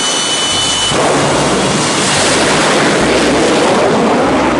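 Jet engine of a jet-powered school bus running at full power on a drag-strip launch: a loud, steady rush of noise. A thin high whine drops away about a second in as the sound fills in lower down.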